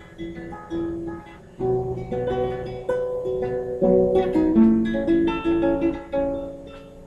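Solo acoustic guitar playing an instrumental passage of plucked chords and picked notes that ring on. It grows louder after a soft opening and tails off near the end.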